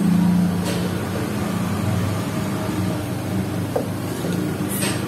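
Low, steady engine drone of a nearby motor vehicle, with a couple of light clicks of spoons against plates, one about a second in and one near the end.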